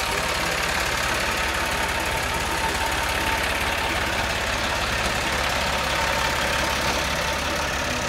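Ford 4630 tractor's three-cylinder diesel engine running steadily close by, with an even low throb.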